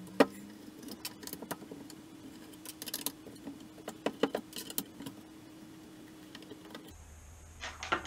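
Small scattered clicks and scrapes of a screwdriver working Torx screws out of a vacuum cleaner motor's housing, with a few sharper taps, over a faint steady hum that stops near the end.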